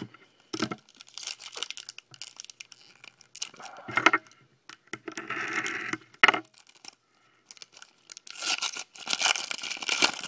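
Foil trading-card pack wrapper crinkling and being torn open by hand, in irregular bursts, with the longest and loudest stretch near the end.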